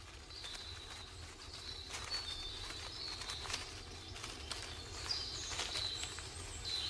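Small birds giving short, thin, high chirps and whistles now and then, over a low steady rumble of forest ambience.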